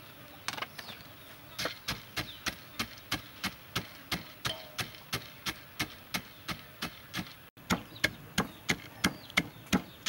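Long wooden pestle pounding roasted nuts in a wooden mortar: steady, even knocks, about three a second, starting about a second and a half in.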